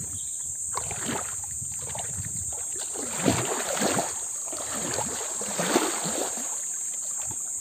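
Water sloshing and splashing in irregular surges as a person sits and moves about in a shallow, muddy pool, stirring up the water. The loudest splashes come a little past the middle.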